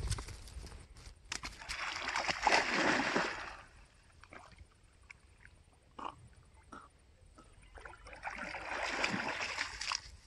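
A dog jumping into a pond with a loud splash about a second and a half in, then faint sloshing and paddling as it swims, and a second spell of splashing near the end as it scrambles out of the water.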